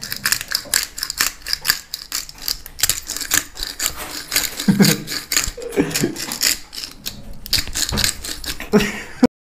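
Whole peppercorns being ground in a hand pepper grinder: a quick run of dry crackling clicks, several a second, that cuts off just before the end.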